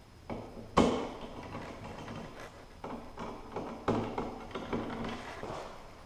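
Handling noise: a few sharp clicks and knocks over faint rustling, the loudest about a second in.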